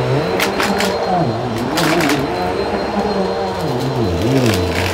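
Bissell vacuum cleaner running over carpet, with a steady motor whine and short crackling bursts about half a second and two seconds in as small plastic and foam debris is sucked up.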